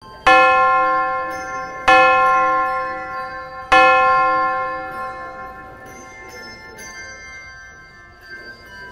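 A bell struck three times, each ring left to die away slowly, one after another about two seconds apart. Fainter, higher bell notes of several pitches ring on after the third stroke.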